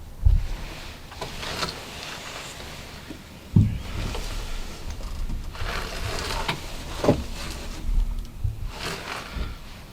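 Rustling with several sudden dull thumps, typical of people shifting and handling gear close to the microphone.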